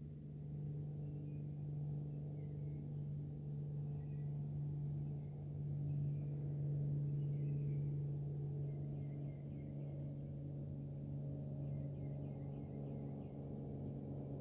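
A steady low droning hum with overtones, swelling slightly in the middle, with faint short high chirps over it.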